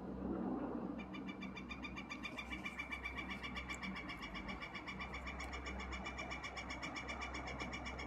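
Woodpecker on a chimney cap giving a long, rapid, even series of ringing notes, starting about a second in and lasting about seven seconds.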